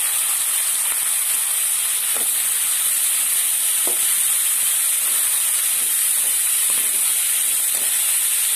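Chickpeas with sliced onion and green chillies sizzling as they fry in an aluminium kadai, a steady hiss. A slotted steel spatula stirs them, scraping the pan a few times.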